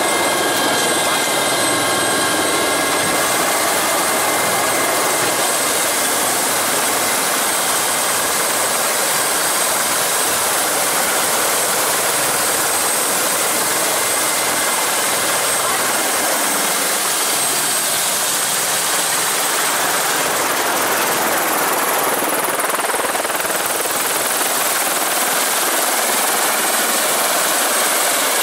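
Turbine helicopter running on the ground with its rotor turning: a steady rushing noise under a high, constant turbine whine. A few fainter tones die away in the first few seconds.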